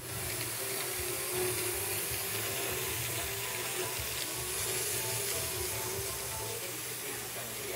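Märklin mini-club Z-scale model train running on its track: a steady whirring hiss from the tiny motor and wheels, with a faint wavering hum.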